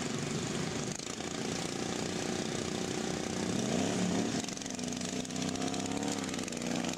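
Two racing riding lawn mowers running hard as they pass. Their engine pitch rises about three to four seconds in, then holds steady.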